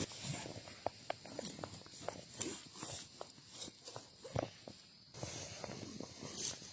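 Light rustling and scattered small crackles and snaps of leaf litter and twigs on a forest floor, from footsteps and handling. The sound drops out briefly about five seconds in, then resumes over a steady hiss.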